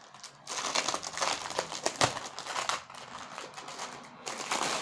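Packaging crinkling and rustling as it is handled, with a sharp click about two seconds in.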